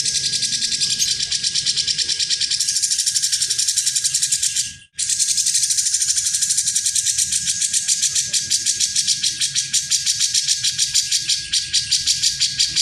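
Cucak jenggot (grey-cheeked bulbul) giving a fast, rattling trill of rapidly repeated high notes in two long bouts, broken by a short pause about five seconds in.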